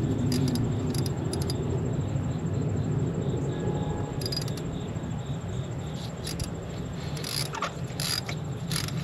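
Ratchet socket wrench clicking in short, irregular bursts as a new spark plug is tightened into the cylinder head, over a steady low rumble.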